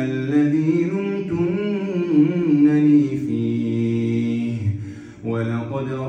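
A man's voice chanting Quran recitation in a slow melodic style, holding long drawn-out notes that bend in pitch. About five seconds in, the voice stops briefly for a breath, then goes on.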